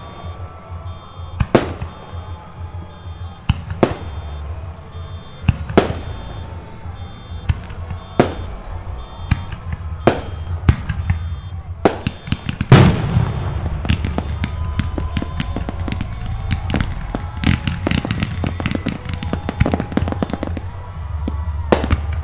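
Aerial fireworks shells bursting in the sky, one sharp report about every two seconds, with the loudest boom about halfway through. This is followed by a dense run of crackling reports lasting several seconds.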